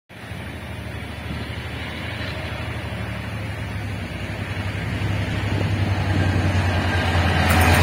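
Taiwan Railways diesel-electric locomotive R157 approaching at speed at the head of a freight train, its engine roaring with a deep steady drone that grows louder as it comes closer.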